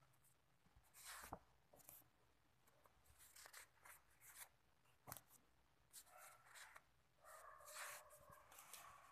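Sheets of painted card being handled and slid over one another as a stack is leafed through: soft paper rustles and swishes. From about six seconds in, a faint pitched sound with several steady tones joins in.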